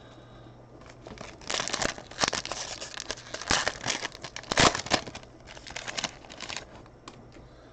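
Foil wrapper of a football trading-card pack crinkling and tearing as it is opened by hand. It comes as a run of irregular crackly bursts, the loudest about four and a half seconds in.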